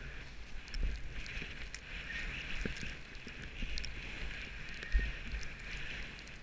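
Skis sliding and turning on snow, a steady hiss, with wind rumbling on the camera's microphone and a low thump about five seconds in.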